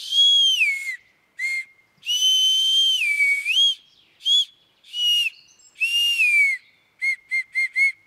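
Maienpfeife, a spring whistle made from tree bark, blown in a run of notes that slide up and down in pitch with short pauses between them. It ends with four quick short toots.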